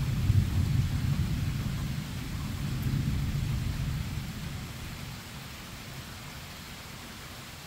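Thunder rolling low and dying away over about five seconds, above a steady hiss of rain.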